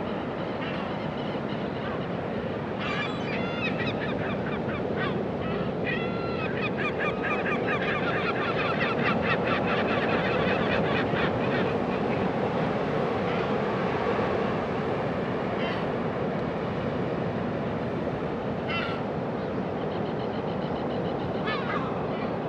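Steady surf of Pacific Ocean waves with birds calling over it: a fast run of repeated calls in the first half, then a few single calls later on.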